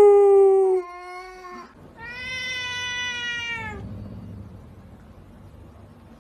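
Cat meowing: a loud, drawn-out yowl that drops away about a second in, then a second long, steady meow about two seconds in.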